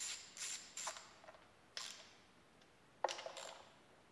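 Small ratchet wrench clicking in short bursts, several in quick succession and then a few more spaced out with one sharp click about three seconds in, as 10 mm bolts are run down on a thin plastic timing-belt cover.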